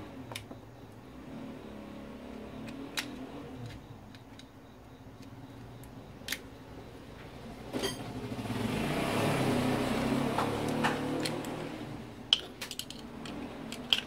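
Scattered sharp metal clicks and taps as a long steel screwdriver pries at a small motor's housing. Around the middle, a motor vehicle passes by, its engine noise swelling and then fading away.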